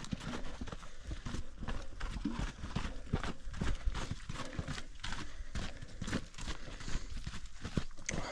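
Footsteps crunching and scraping on a loose volcanic lava-stone trail, an irregular run of short steps while hiking uphill.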